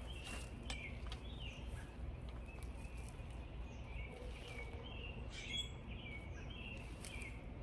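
Small birds chirping in a quick, repeated series of short notes, over a steady low background rumble with a few sharp clicks.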